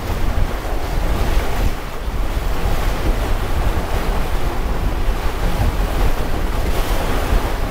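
Wind buffeting the microphone in a steady low rumble, over the rush of water along the hull of a paddle steamer under way.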